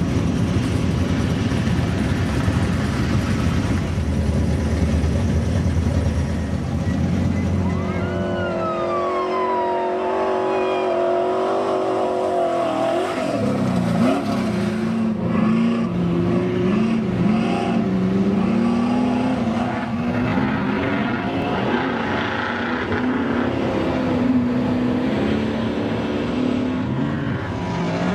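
Off-road race truck engines running. A deep steady rumble for the first eight seconds gives way to a high engine note falling in pitch, then engines revving up and down.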